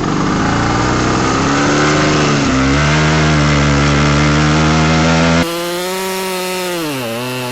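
Husqvarna 572XP two-stroke chainsaw running under load, cutting through large oak logs. The sound changes abruptly about five seconds in, and near the end the engine pitch dips and recovers as the saw loads up in the cut.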